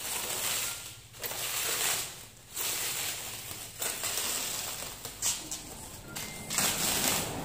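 Clear plastic wrapping crinkling and rustling as it is pulled open by hand, in several long bursts separated by brief pauses.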